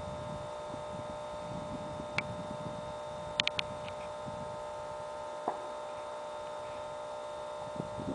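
Steady electronic hum made of several even tones, over a low rumble, broken by a few faint sharp clicks: one about two seconds in, three in quick succession a little later, and one more about halfway through.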